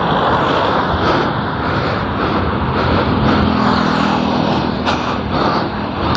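Motorcycle on the move, heard from the rider's seat: wind rushing over the microphone with the engine running underneath, a faint steady engine tone showing through in the middle.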